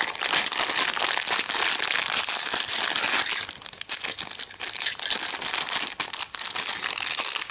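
Thin plastic toy bag crinkling as it is torn open by hand and the toy is pulled out of it.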